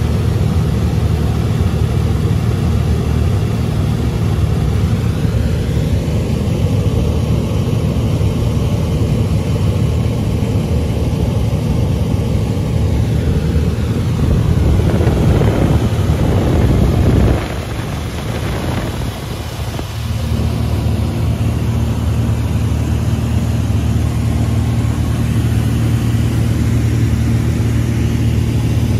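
Beechcraft Debonair's piston engine and propeller droning steadily, heard inside the cabin in flight. The drone swells and wavers in pitch around the middle, drops suddenly a little past halfway, then settles into an even hum.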